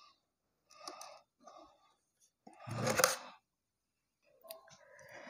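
Intermittent faint handling noises, short rustles and clicks of small parts and wires being handled, with one longer, louder rustle about three seconds in.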